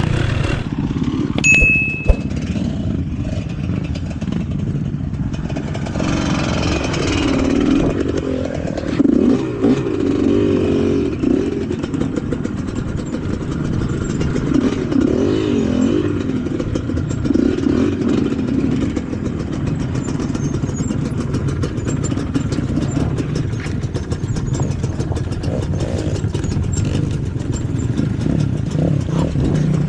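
Off-road motorcycle engine running under load, revving up and down repeatedly as it rides a dirt trail.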